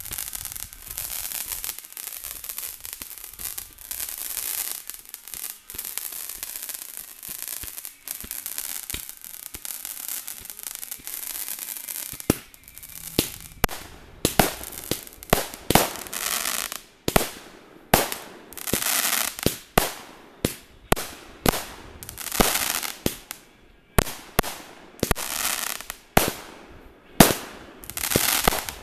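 Consumer fireworks going off. First a steady high hiss, then from about twelve seconds in a rapid run of sharp cracks and pops, several a second, with short bursts of hissing between them.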